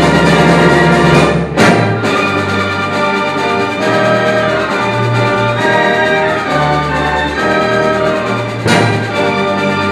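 Symphony orchestra playing loud, sustained brass-led chords, with a sharp accent stroke about a second and a half in and another near the end.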